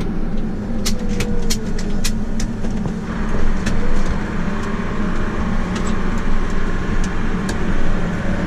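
Farm tractor engine running steadily under load, heard from the cab, with frequent sharp clicks and rattles over the first few seconds as it rolls down a hill.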